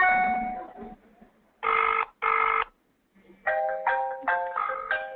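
Telephone ringing tone heard over a mobile phone's speakerphone: a short chime at the start, then one double 'ring-ring' burst about a second and a half in. Near the end a melodic ringtone of quick stepped notes starts as the call is delivered to the agent.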